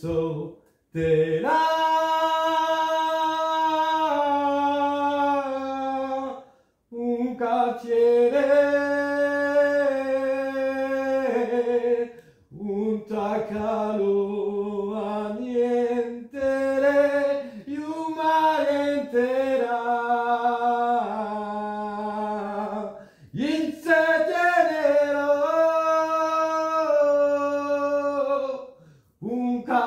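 A man singing into a microphone, a chant-like song of long held notes in phrases of several seconds, with short breaks for breath between them.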